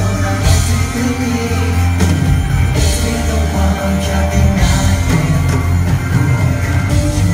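Live J-pop band playing loud through a concert hall's sound system, with drums, bass, guitar and keyboards under a male singer's vocals, recorded from the audience.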